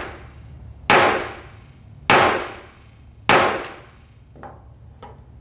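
Wooden mallet striking hard onto a small object held on a wooden table: three loud blows a little over a second apart, each ringing away over about half a second. Two much lighter knocks follow near the end.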